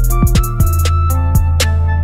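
Background music: an electronic beat with deep bass notes that slide down in pitch, sharp hi-hat-like ticks and held synth notes.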